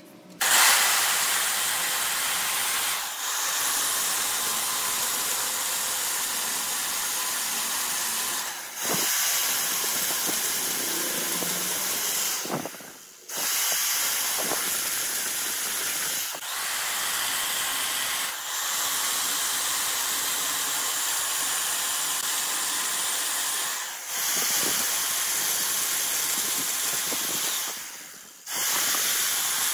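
A steady hiss that breaks off briefly about seven times and starts again each time.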